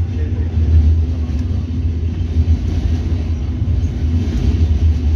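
Tram running along its track, a steady low rumble heard from inside the passenger car.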